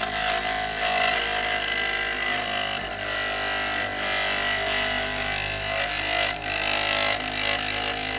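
Bedini-style pulse motor with a 3D-printed magnet rotor spinning at about 3,200 RPM, making a loud, steady mechanical racket with a high whine. The noise's cause is not yet known to the builder.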